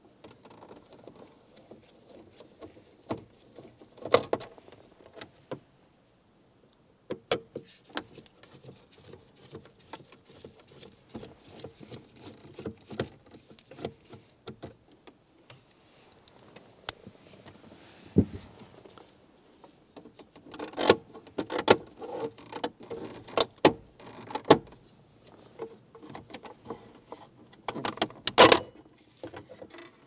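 Clicks, taps and small rattles of hand work on a 2005 Chrysler 300's plastic center console trim: Phillips screws being taken out, then the shifter bezel pried up with a plastic trim tool. Its retaining clips come loose with the sharpest clicks bunched in the last third.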